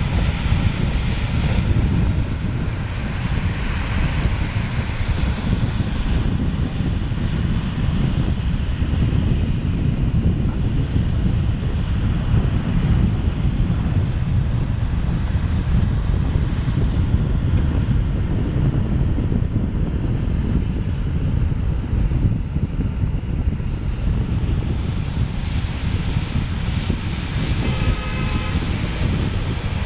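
Storm wind buffeting the microphone: a steady, rough low rumble with a rushing hiss over it. A faint pitched sound comes through near the end.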